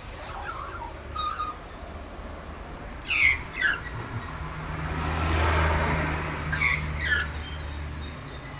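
A road vehicle passing, its noise swelling to a peak about halfway through and then fading, while a bird gives two pairs of sharp calls that sweep down in pitch, about three seconds in and again near seven seconds.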